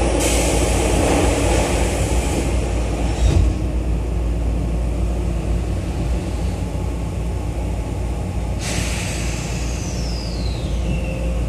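Running noise inside a Tobu 9050 series electric train car travelling through an underground tunnel: a steady rumble of wheels and running gear. A high hiss stops with a short thump about three seconds in, and a hiss with a falling whine comes in for the last few seconds.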